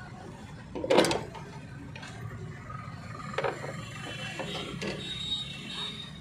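A screwdriver knocks sharply against the Fiat Punto's fuel pump locking ring about a second in, then gives a second knock and a few smaller clicks and clatters as the pump module is worked loose by hand.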